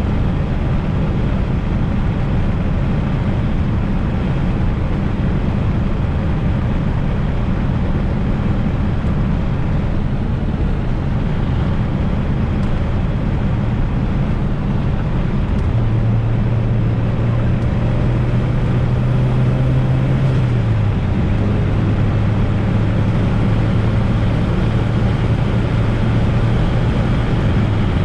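Fiat Coupe 16V Turbo's turbocharged four-cylinder engine and road noise while driving at a steady pace. Partway through a steady engine hum comes up, then drops a little in pitch a few seconds later as the engine speed eases slightly.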